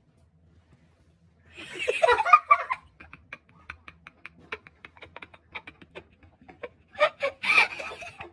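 Black-and-white domestic cat yowling, with a loud call of bending pitch about two seconds in and another near the end. A run of faint clicks fills the gap between them.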